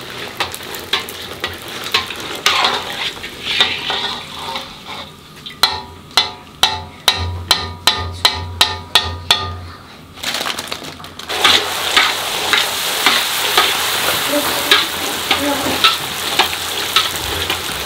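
Puris deep-frying in hot oil in a wok, sizzling, while a metal slotted skimmer scrapes and clicks against the pan; midway comes a run of regular clicks about three a second. About 11 s in a fresh batch of raw dough puris goes into the oil and the sizzle becomes louder and denser.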